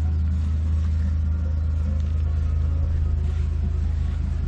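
A motor running steadily nearby, a low even rumble with a faint regular pulse.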